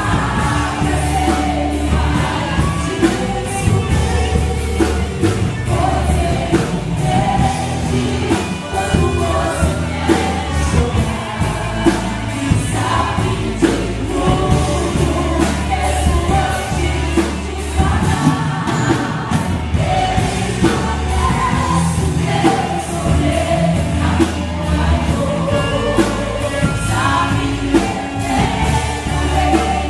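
Live gospel worship music: a band with bass and drums accompanying a group of singers.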